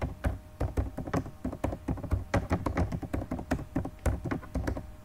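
Typing on a computer keyboard: irregular key clicks, a few each second.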